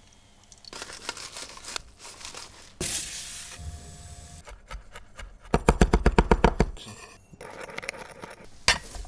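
A sequence of kitchen sounds: scraping and hissing from a hot roasting tray, then a chef's knife chopping fast on a wooden board, about ten strokes a second for just over a second, then chopped herbs scraped off the blade into a small glass bowl.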